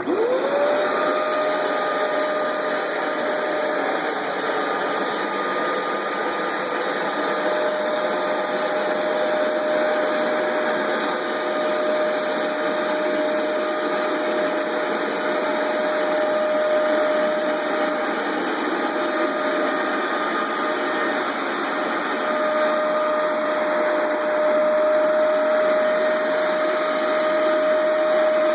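Hoover Max Extract 77 carpet deep cleaner switched on: its motor spins up quickly, then runs with a steady whine over a rushing noise.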